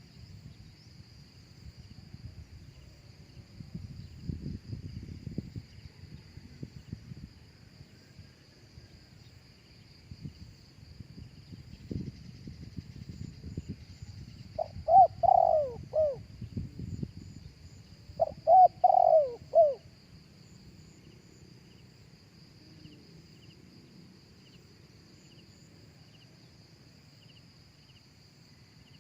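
Spotted dove cooing: two short phrases of a few coos each, about three seconds apart, past the middle. Under it runs a steady high drone of insects, with a low uneven rumble in the first half.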